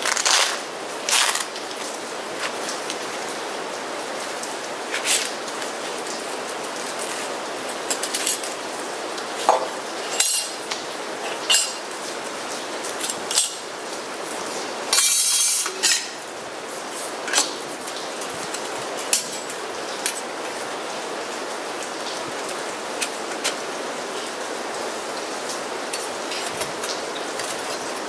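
Stainless steel plates of a folding wood-burning camp stove clinking and scraping against each other as they are handled and fitted together, in scattered sharp clicks with a few longer rasps. Steady rain hiss underneath.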